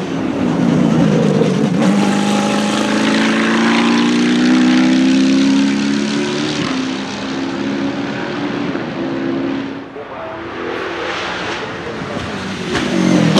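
Arrinera Hussarya GT3's LS3 V8 racing engine at hard throttle as the car drives past, its note rising and dropping. The sound dips briefly about ten seconds in, then builds again near the end as the car comes past once more.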